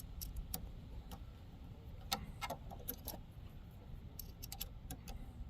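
Faint, irregular small metallic clicks and ticks of an Allen key turning in the set screw of a key-cutting machine's clamp jaw as it is snugged down.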